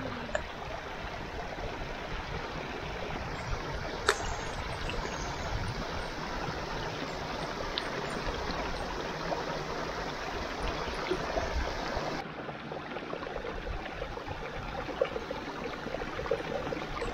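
A small stream of water trickling and gurgling over rocks, with a plastic water bottle dipped into it to fill. A single sharp click about four seconds in.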